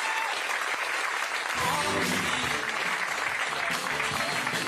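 Audience applauding. About a second and a half in, music with a low bass line comes in underneath the applause.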